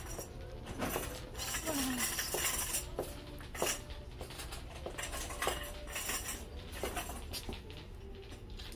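Light metal clinks and rattles with a run of sharp clicks, and a short falling squeak about two seconds in.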